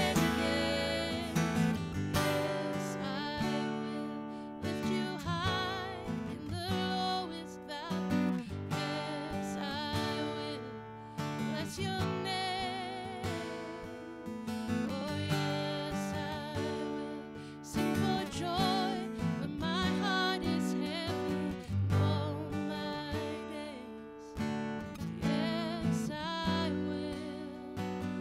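Worship song performed live: a strummed acoustic guitar accompanying a woman and a man singing.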